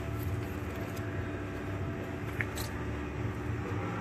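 Steady low hum, with a couple of faint metallic clicks about two and a half seconds in as a feeler gauge is worked between the valve stem and rocker arm of an air-cooled VW engine while checking valve lash, which is loose.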